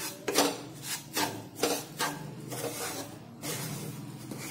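Wooden spatula scraping and stirring coarse wheat flour in oil around a non-stick kadhai, a run of rasping strokes about two a second, softer after about two seconds. The flour is being mixed into the oil to start roasting.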